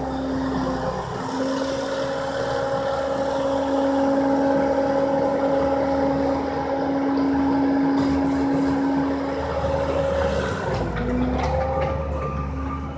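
Bobcat compact track loader's diesel engine running at high revs under load as its loader arms lift a heavy pallet. The engine note holds steady, dipping briefly about a second in and again near the end as the machine pulls back.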